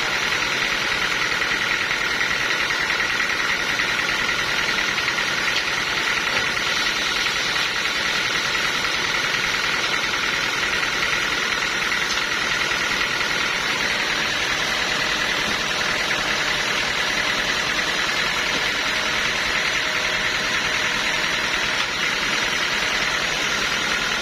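Sawmill machinery running steadily: an engine-driven saw giving a constant mechanical noise with a steady high-pitched whine.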